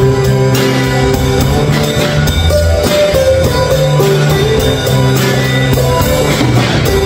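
Two acoustic guitars and a Yamaha drum kit playing a steady, continuous rock groove together, with strummed chords over drum hits throughout.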